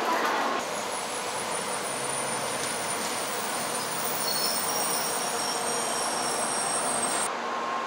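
Shinkansen bullet train moving along the platform: a steady rushing noise with thin, high-pitched whining or squealing tones above it. The sound cuts off sharply near the end.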